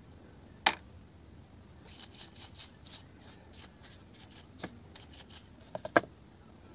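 Stiff bristle brush scrubbing the metal planetary gears of a Bosch GSR 12-2 cordless drill's gearbox, a run of quick scratchy strokes. A sharp click comes about half a second in and a couple of knocks near the end as the gear housing is handled.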